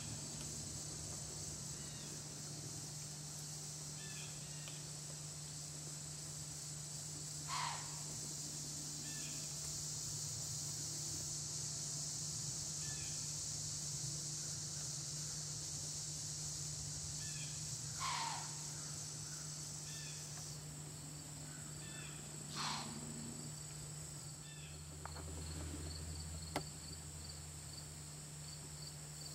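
A steady, high-pitched chorus of crickets and other insects in late-summer woodland. Three times a short call slides downward in pitch, and near the end there is a single click.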